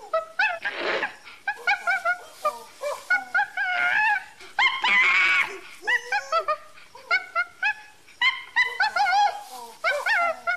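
Bonobos calling: a rapid string of short, high-pitched squeaky calls that bend up and down, with a harsh rasping call about a second in and a longer, louder wavering shriek about five seconds in.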